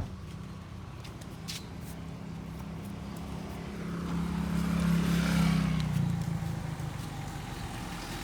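A motor vehicle passing close by: a low engine hum that grows louder about four seconds in, peaks, and fades again about six seconds in, over steady outdoor background noise.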